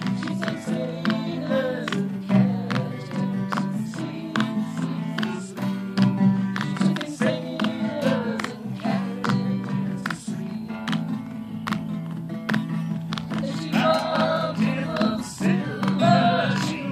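A traditional folk song played on a strummed acoustic guitar, with a sung vocal line that comes through most strongly near the end.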